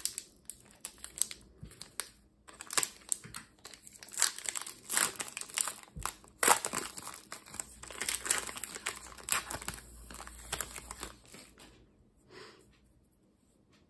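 Foil wrapper of an Upper Deck hockey card pack being torn open and crinkled in the hands, a run of sharp crackles that thins out and fades near the end.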